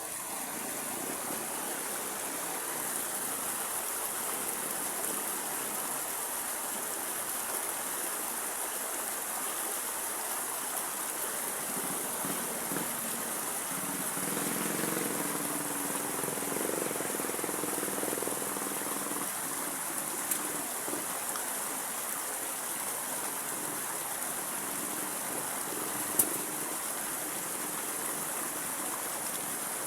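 River water flowing steadily, with a faint low hum partway through and two brief sharp clicks near the end.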